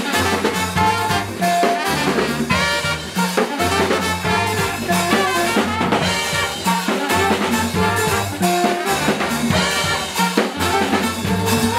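Live brass band playing an up-tempo tune: a saxophone up front with trumpet, a sousaphone bass line and a drum kit.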